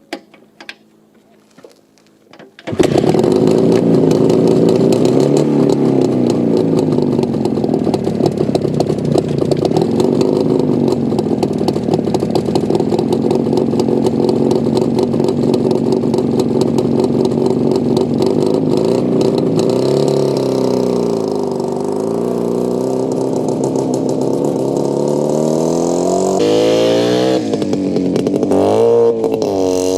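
1988 ČZ 350 type 472.6 twin-cylinder two-stroke motorcycle engine: a few knocks, then it starts suddenly a little under three seconds in and settles into a steady idle. Later its speed wavers, and near the end it is revved up and down several times.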